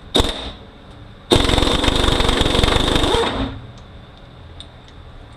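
Impact wrench hammering on a nut on a transfer case shaft. A short blip comes first, then about two seconds of steady, rapid hammering that stops without the nut being reported as loosened.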